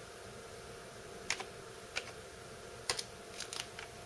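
Computer keyboard keys pressed one at a time, about six sharp, irregularly spaced clicks, the last few quicker together, as the mill's axis is jogged in small steps. A faint steady hum runs underneath.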